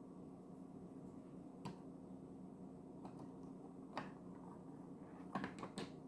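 Faint clicks and taps of a plastic modelling-clay cutter and its keychain tub being handled against a hard countertop: a couple of single clicks, then a quick cluster of three or four near the end, over a low steady hum.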